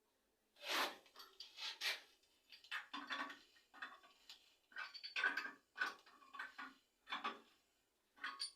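Irregular clattering and scraping, a dozen or so short knocks and scrapes at an uneven pace, like tools or fittings being handled.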